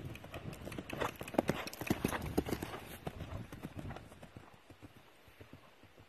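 Hoofbeats of a ridden three-year-old mare on grass, growing louder as she passes close about one to three seconds in, then fading as she moves off.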